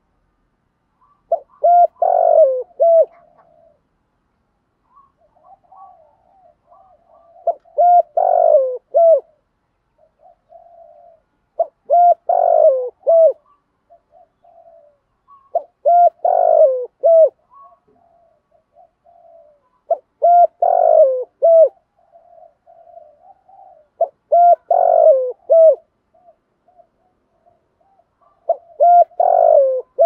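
Spotted dove cooing: a caged decoy bird giving its repeated multi-note song phrase about every four seconds, seven times, with softer cooing between the phrases.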